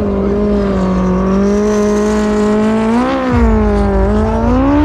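Racing jet ski engine running hard at high revs, its pitch held fairly steady with a brief rise about three seconds in and another near the end.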